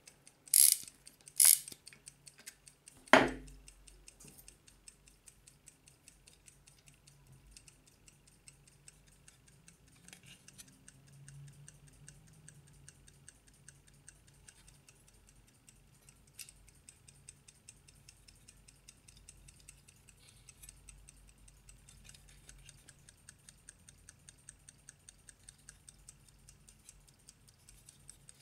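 Winding key turning in a Soviet naval deck clock movement, with two loud ratchet clicks in the first two seconds, then a single knock about three seconds in. After that comes the faint, rapid, even ticking of the running platform escapement.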